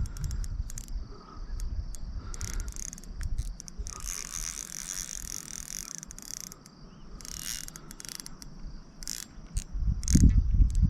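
Crickets chirring steadily, with intermittent clicking and ticking of a fishing reel as a hooked fish is played. A low rumble swells near the end.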